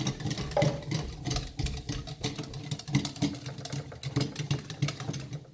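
Light clicks and knocks of toy kitchenware being handled and set down on a toy kitchen's hob, over a low steady hum.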